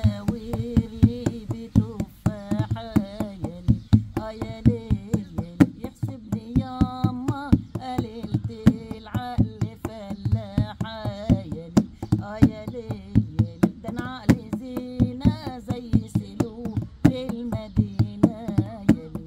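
A woman sings a folk song in phrases with short pauses while beating an Egyptian tabla (darbuka goblet drum) with her hands in a quick, steady rhythm.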